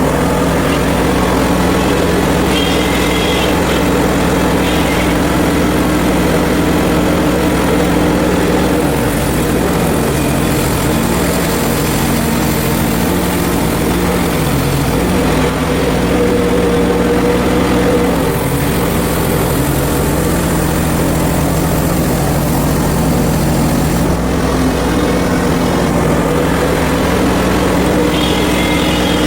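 Hud-son portable bandsaw sawmill's small gas engine running steadily as the mill saws, with a high hiss that swells and fades in the middle.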